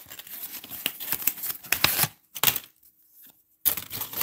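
Rustling and quick clicking as a freshly opened wax pack of baseball cards is handled: wax-paper wrapper and a stack of cards. It runs for about two seconds, then comes back as two short rustles.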